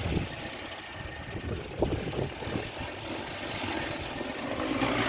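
Gusty storm wind buffeting the microphone: an uneven low rumble with scattered knocks, and a gust swelling near the end.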